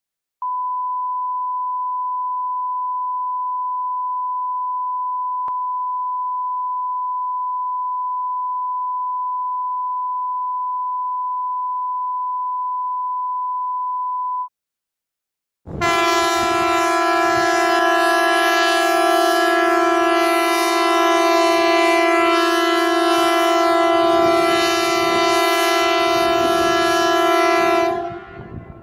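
Emergency alert signals: a single steady pure beep tone held for about fourteen seconds, then, after a pause of about a second, a louder steady horn-like alarm tone with many overtones, held for about twelve seconds before cutting off.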